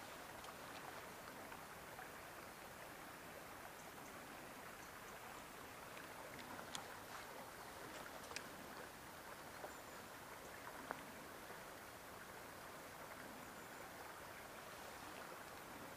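Faint steady rush of a shallow river's flowing water, with a few faint short ticks in the middle.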